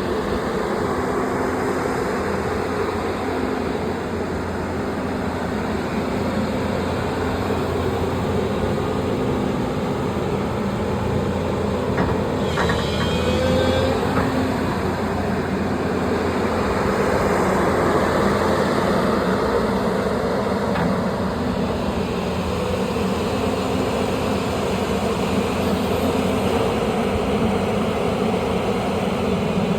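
Cummins diesel engine of a Sany SY335C excavator running steadily. There is a brief high squeal about twelve seconds in, and the engine grows a little louder around seventeen seconds in.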